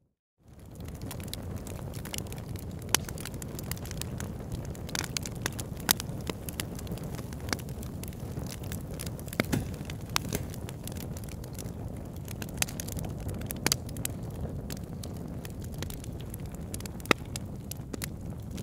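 Wood fire crackling in a fireplace: a steady low rumble of burning with irregular sharp pops and snaps. The sound drops out for a moment at the very start and fades straight back in.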